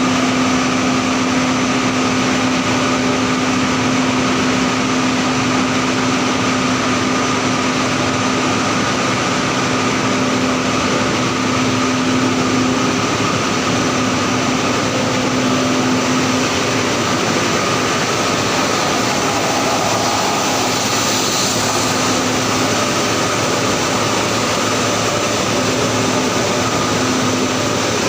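Steady, loud industrial machinery noise from a steel galvanizing line, with a constant low hum that drops out a little past halfway and comes back faintly near the end.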